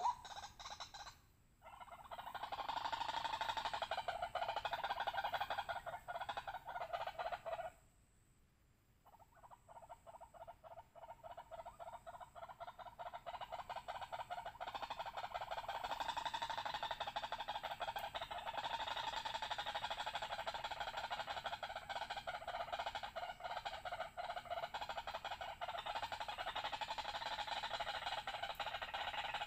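White-breasted waterhen calls: a fast, unbroken run of harsh repeated notes. It breaks off briefly about a second in and for a second or two around eight seconds in, then picks up again and goes on steadily.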